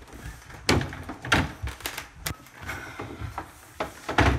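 Wooden apartment door being shut and its rim lock worked: a series of sharp clicks and knocks, the loudest near the end.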